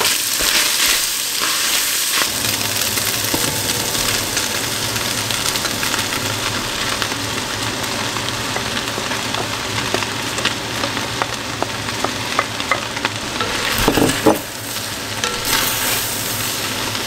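Chicken breast sizzling as it browns in a frying pan, stirred now and then with a utensil that clicks and scrapes against the pan; one sharper knock about fourteen seconds in.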